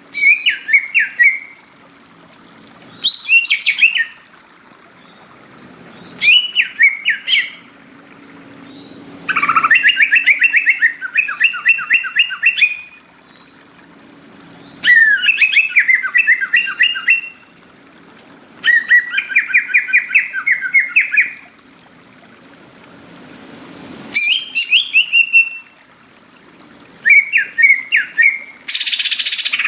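Green leafbird (cucak ijo) singing loudly in full song: repeated bursts of fast, warbling, chattering phrases every few seconds, with short pauses between them.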